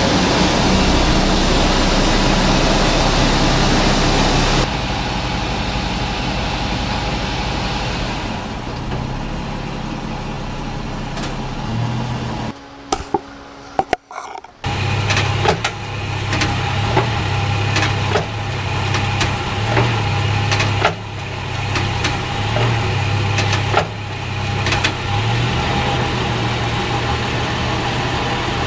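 Running drivetrain of a 2006 Toyota Tundra heard from underneath with the rear end jacked up: a steady engine and driveshaft drone, with a brief dropout about halfway and scattered light knocks in the second half. The owner traced the vibration and clunk to the driveshaft, whose U-joints have heavy play.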